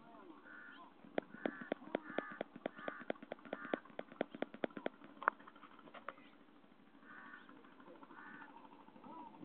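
A bird calling repeatedly in short calls, with a quick run of sharp clicks or knocks, about five a second, from about a second in to about five seconds in.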